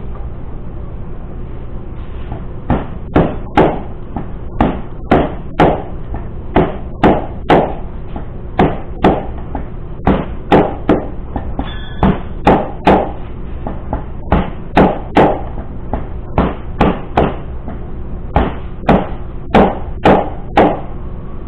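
A long run of sharp knocks, many in quick pairs, about one to two a second, over a steady low hum.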